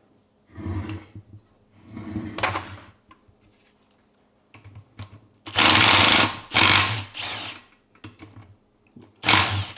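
Cordless impact driver hammering the cylinder-head bolts of a 16 hp Briggs & Stratton Vanguard V-twin loose, in several separate bursts, the loudest a little past the middle and one near the end. The impact sound is the sign of how tight these head bolts are, tighter than on the other head, whose bolts were loose.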